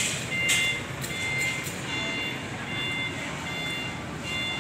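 Vehicle reversing alarm beeping at an even pace, one short beep about every three-quarters of a second, over the low running of heavy vehicle engines. A couple of sharp knocks sound in the first second or so.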